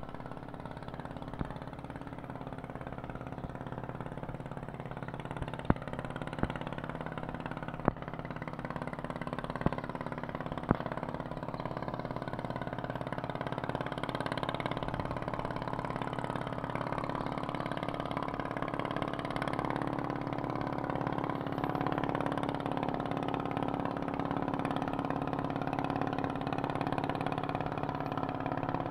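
A boat engine running steadily at an even pitch, growing somewhat louder in the second half. Several sharp knocks sound in the first half.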